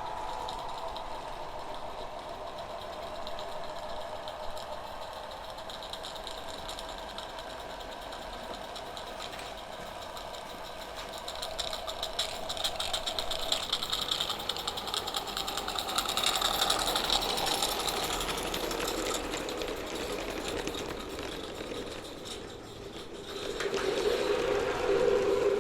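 A 16mm-scale garden railway train running along the track, a rapid clicking and rattling of wheels and wagons that grows louder about halfway through as the train comes closer.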